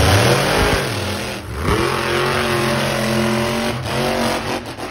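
Monster truck engine revving loudly, its pitch dropping off and then climbing again about a second and a half in, and held high after that.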